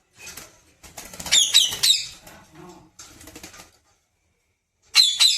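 Pet parrot flapping its wings and giving harsh, repeated screeching calls, in a bout about a second in and a louder one near the end.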